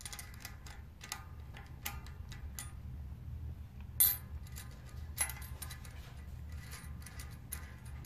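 Steel cassette cogs and spacers clinking and clicking against each other as they are fitted by hand onto the rear hub of a mountain bike wheel. The clinks are irregular, with a sharper clank about four seconds in.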